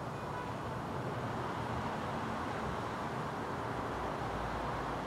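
Steady rushing noise with no distinct events, heaviest in the low and middle range, growing slightly louder about two seconds in.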